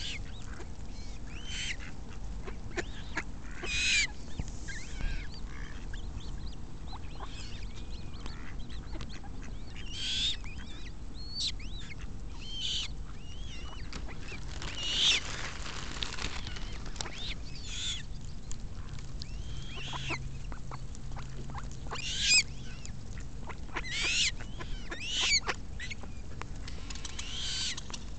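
Eurasian coots and mallards calling while they feed: short, scattered calls and quacks every second or two, a few of them louder, over a steady low background rumble.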